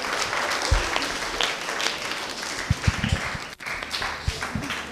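Church audience clapping after a child's Bible-verse recitation, many hands together, thinning out near the end, with a few dull low thumps in among the claps.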